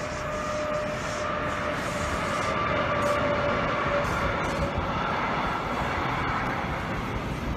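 Long container freight train rolling past, its wagons' wheels running steadily over the rails, with a thin steady whine in the first half.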